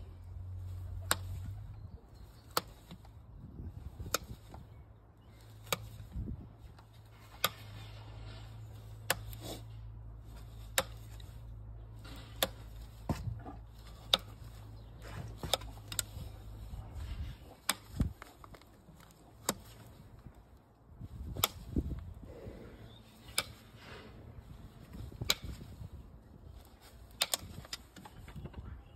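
Hoof nippers cutting the overgrown wall of a Shire horse's hoof, each bite a sharp crack, about one every one and a half to two seconds.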